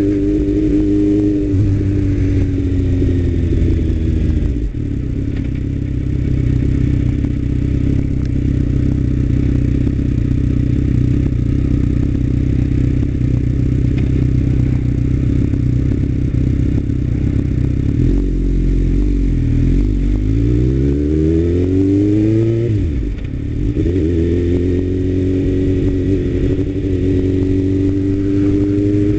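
Suzuki GSX-R sport bike's inline-four engine, heard from the rider's seat. The engine note falls as the bike slows at first, then runs steady at low revs for a long stretch. About two-thirds of the way in it revs up with a rising pitch, drops briefly at a gear change, and settles into a steady pull again.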